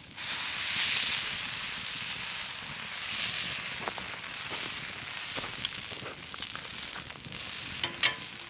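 Sausages sizzling on a hot grill plate over a wood fire, the sizzle swelling as they are turned near the start, with the burning wood giving a few sharp pops and crackles.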